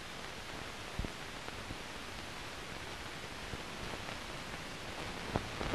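Steady hiss with scattered clicks and pops from an old sound-on-film newsreel soundtrack, a sharper pop about a second in and a few more near the end.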